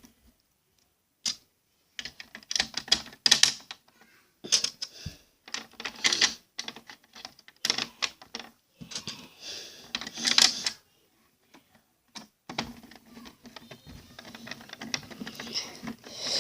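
Small Phillips screwdriver driving screws back into a plastic VHS cassette shell, with clicks and scrapes of metal on plastic in short bursts of about a second, one screw after another.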